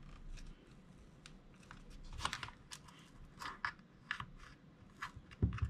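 Faint, scattered clicks and small snaps of plastic as a thin metal prying tool works into the seam of a hot glue gun's plastic housing, which is stuck shut with glue; a low knock comes near the end.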